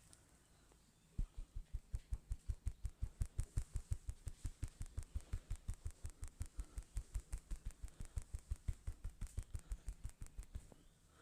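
Percussive massage strikes: a quick, even run of dull thumps, about five a second, starting about a second in and stopping near the end.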